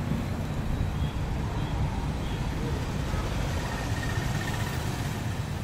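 Steady low rumble of road traffic passing.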